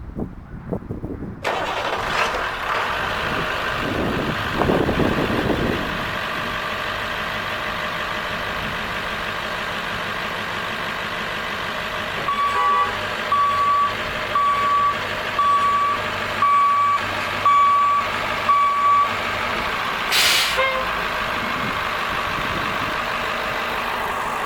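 School bus diesel engine started up from outside: it comes in suddenly about a second and a half in and settles to a steady idle. Partway through, a run of about seven short, even beeps sounds, one a second, and about twenty seconds in there is a brief hiss.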